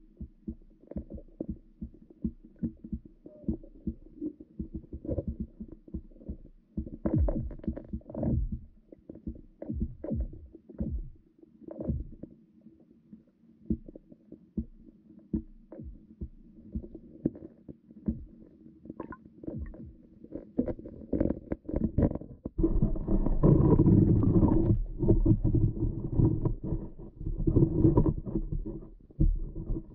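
Muffled, irregular knocks and thumps picked up through the water by an underwater camera beneath the ice, over a faint steady hum. About three-quarters of the way in, a louder, denser low rumble sets in and carries on to the end.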